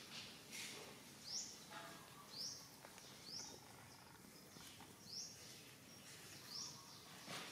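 A small bird repeating a short, high chirp about once a second, faint, with soft rustling in between.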